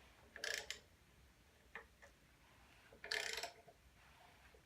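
Faint runs of rapid ratcheting clicks, twice, with a single click in between, as the crankshaft of a stripped small-block Chevy 350 is turned by hand with a wrench; the crank turns smoothly.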